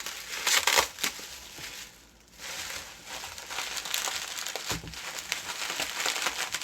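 Packaging being rummaged through in a cardboard box, rustling and crinkling in two spells with a short pause about two seconds in, and a dull thump partway through the second spell.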